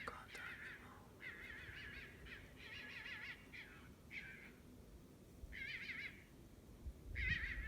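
An unseen animal calling over and over: a run of short, wavering, high-pitched cries with brief gaps between them.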